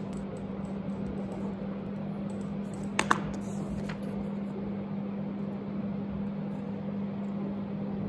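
Room tone with a steady low hum, and a sharp double click about three seconds in.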